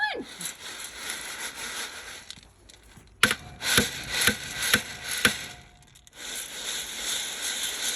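Feed being shaken out of a plastic bag into a feed pan, with rustling and scraping, and five sharp knocks about half a second apart in the middle. A short falling whistle-like call comes at the very start.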